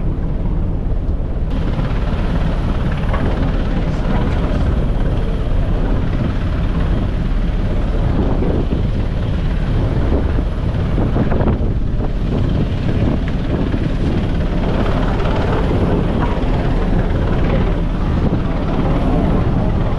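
Rescue helicopter hovering near a ship: a steady, loud rotor and engine thrum that runs on without a break.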